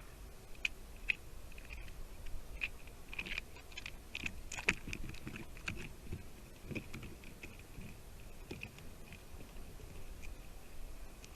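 A squirrel at the nest making a string of irregular short clicks and crunches, clustered most thickly a few seconds in, like gnawing close to the microphone.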